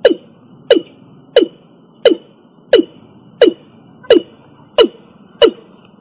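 Watercock calling: a loud series of short notes repeated evenly about one and a half times a second, each starting sharply and dropping in pitch.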